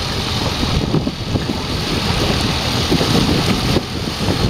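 Wind buffeting the microphone over open sea, with waves washing against the side of a small fishing boat. Steady rushing noise throughout.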